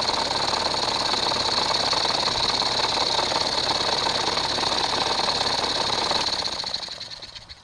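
Electric grinder motor turning a single-cylinder engine through a belt at about 1000 RPM, with the cylinder head off and the piston running without rings: a steady, fast mechanical running sound with a high whine. It dies away over the last second.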